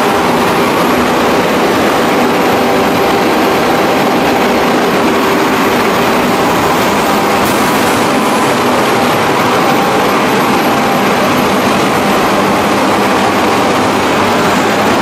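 Spray drying machine running: a steady, loud whir of its fans and motors, with faint steady humming tones underneath.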